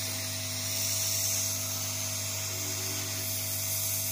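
Hot air rework gun blowing steadily on a COF chip's bonded tab: a constant hiss of air over a low hum and a thin steady whine. It is heating the tab's adhesive so the chip can be pushed off the panel without damage.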